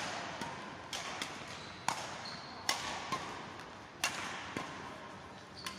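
Badminton rally: rackets striking the shuttlecock in a string of sharp hits roughly every half second to second, each ringing briefly in the hall. One of them is an overhead smash about four seconds in.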